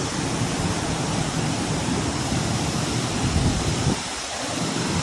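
Waterfall: a steady rush of falling water, its low rumble dipping briefly about four seconds in.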